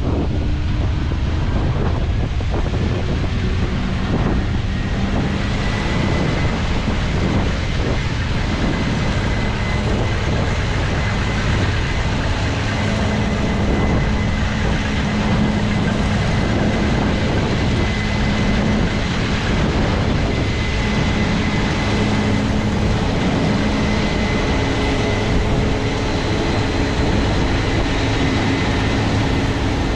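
Case IH 7120 Axial-Flow combine running steadily while harvesting, its engine and threshing machinery giving a constant heavy drone with a faint high whine.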